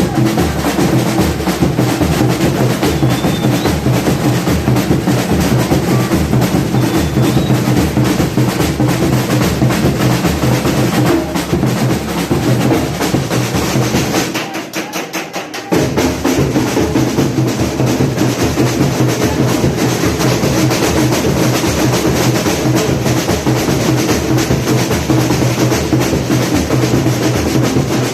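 Samba batucada drum section playing a fast, dense rhythm of bass drums, snares and other percussion. About halfway through, the low drums stop for about a second and the playing thins, then the full group comes back in.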